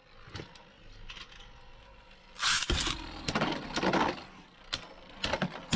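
Two Beyblade Burst spinning tops, Rage Longinus and Fafnir, whirring and scraping around a plastic stadium, with sharp clacks as they collide. The loudest clash comes about two and a half seconds in, more follow over the next second or so, and a few more come near the end.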